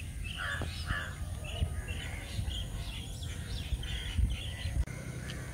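Birds chirping in short, repeated calls, several overlapping, over a low irregular rumble.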